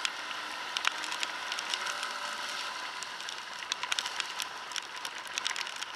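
Steady hiss of wind and wet road on a moving scooter in the rain, with many irregular sharp ticks of raindrops striking the camera.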